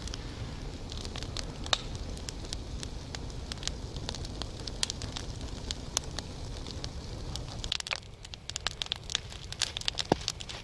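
Campfire crackling and popping as resin-rich spruce bark burns in it, with many sharp irregular snaps. A low steady rush lies under it and drops away about eight seconds in, after which the snaps come thicker.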